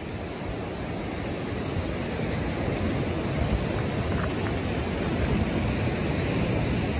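Ocean surf breaking on a rocky shore: a steady rushing wash with a low rumble, swelling a little louder after a couple of seconds.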